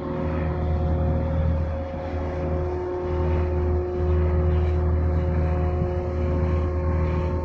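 Marine diesel engines running: a steady low rumble that swells and eases a little, with several steady humming tones on top.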